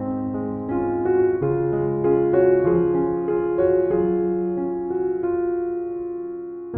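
Background music: soft piano playing a slow series of held notes and chords.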